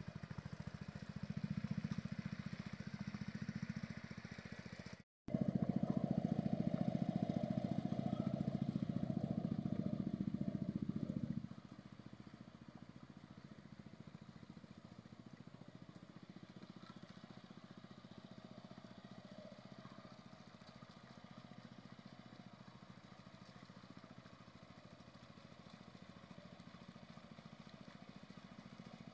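Two-wheel hand tractor's engine running steadily as it pulls a harrow through a flooded rice paddy. It cuts out for a moment about five seconds in and comes back louder. At about twelve seconds it drops abruptly to a fainter, steady running.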